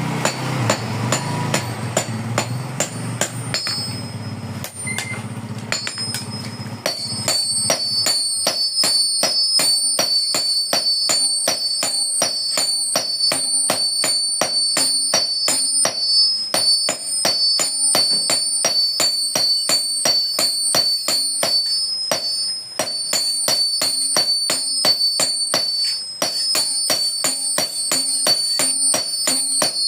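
Hammer blows on a hot steel parang blade over an anvil. For the first six seconds or so the strikes are lighter over a low hum; from about seven seconds in they come steadily, about three a second, each with a high metallic ring.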